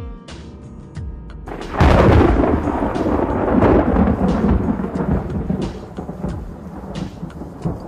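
A loud thunderclap about two seconds in, rumbling and slowly fading over several seconds, over background music with drum hits.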